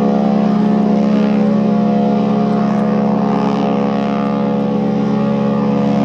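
The cruise ship Queen Elizabeth's horn sounding one long, steady, low blast.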